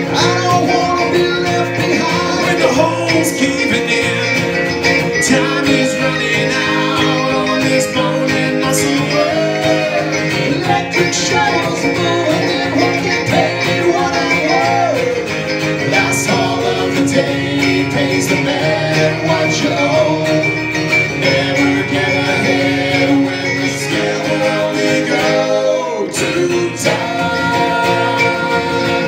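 Live acoustic folk-country song: an acoustic guitar and a smaller plucked string instrument strumming, with a man and a woman singing, at times in three-part harmony.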